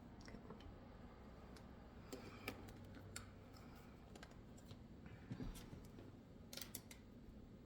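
Near silence with faint, scattered clicks and light taps, a small cluster of them about six and a half seconds in.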